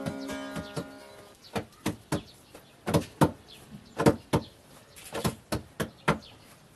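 Hands patting and pressing flatbread dough on a wooden board: a string of short soft slaps, mostly in quick pairs a quarter-second apart.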